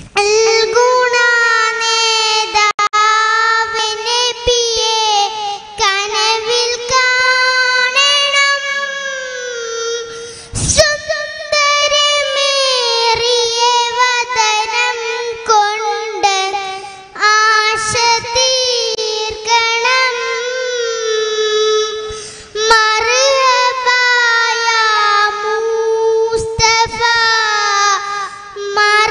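A young girl singing a song solo into a microphone, holding long wavering notes, with short breaks about ten seconds in and again a little past twenty seconds.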